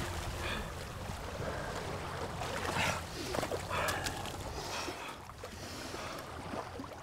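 Steady low rush of surf and wind at the water's edge, with a man's soft heavy breathing about once a second.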